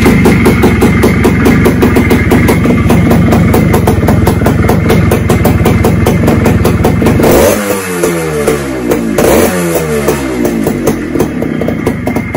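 TVS Suzuki Shaolin's 140cc two-stroke single-cylinder engine running at raised revs with a rapid exhaust beat. About seven seconds in the revs fall away, and they are blipped and fall off once more about two seconds later.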